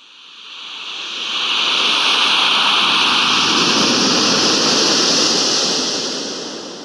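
A single gust of wind that rises out of silence over the first second or so, holds a loud hiss for about four seconds, and then dies away near the end.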